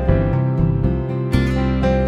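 Background instrumental music with plucked-string notes.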